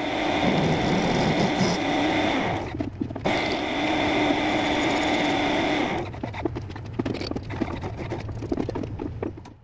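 Metal lathe turning a step into a 4140 steel block: steady cutting noise with a whine over the running machine, dipping briefly about three seconds in. From about six seconds in, irregular clicks and scrapes take over, then the sound drops away near the end.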